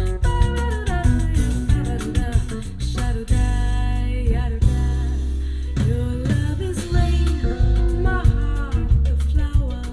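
A song with singing, guitar and drums playing through a van's installed car audio system, with strong, heavy bass.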